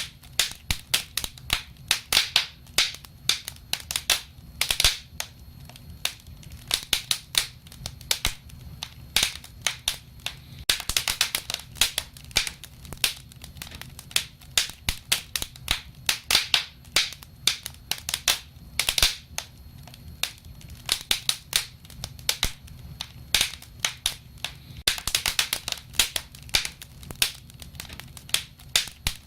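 Wood fire crackling: irregular sharp pops and snaps, some in quick clusters, over a low steady rumble.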